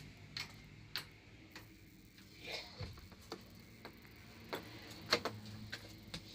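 Faint, irregular light clicks and knocks of a coach's glazed smoking-area door and its handle and latch being handled, over a faint low steady hum.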